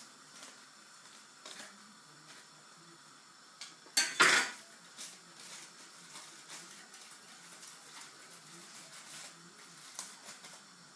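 Light clinks and taps of metal cookware and utensils being handled, with one loud clatter about four seconds in.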